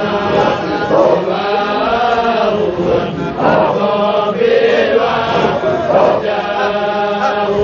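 A group of men chanting a Qadiriya Sufi dhikr together, an Arabic devotional hymn sung in unison with overlapping voices.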